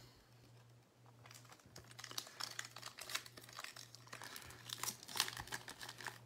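Foil wrapper of a Panini basketball trading-card pack crinkling and crackling as it is handled and torn open, starting about a second in.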